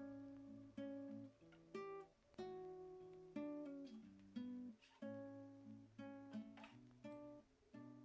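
Faint background music: guitar chords plucked roughly once a second, each ringing out and fading before the next.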